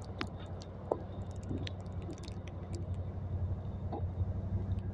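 Quad ATV engine idling with a steady low hum, growing a little louder toward the end, with scattered light splashes and taps from footsteps on the wet ground.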